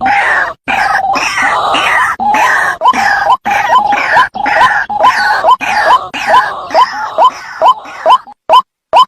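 White-breasted waterhen (ruak-ruak) calls played as a bird lure. A fast series of short rising notes comes at about two to three a second, over harsh, noisy croaking that fades out. Near the end only the clean repeated notes are left, with short gaps between them.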